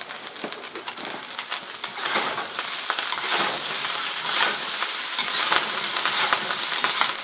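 Rice and peas sizzling in hot peanut oil in a carbon steel wok while a metal ladle and spatula toss and scrape through them. The sizzle grows louder about two seconds in.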